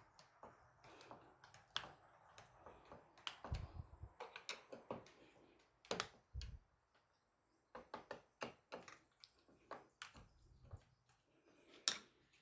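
Faint, scattered clicks and small knocks of a hand screwdriver tightening the latch screws, with a couple of duller thumps about three and a half and six seconds in.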